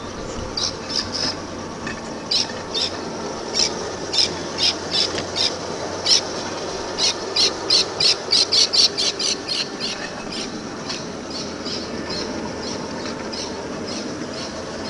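5-inch gauge battery-electric model tram rolling along its track with a low rumble, while a high squeak from its running gear repeats at a regular beat. The squeaks come about twice a second, quicken to four or five a second around the middle, then slow again.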